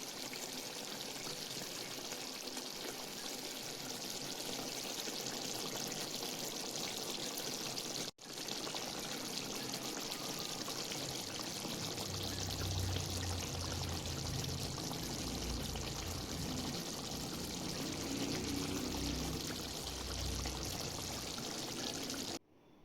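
Chicken masala sizzling in a pan as it cooks, a steady hiss that breaks off for an instant about eight seconds in and stops abruptly near the end. A low rumble sits under it through the second half.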